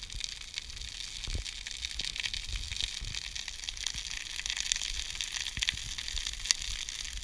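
Dry weeds and grass burning in a field fire, crackling and hissing steadily with many sharp pops.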